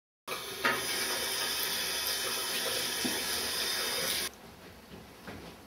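Water from a tap running hard into a sink, a loud even rush that cuts off suddenly about four seconds in, leaving quiet room sound with a few faint knocks.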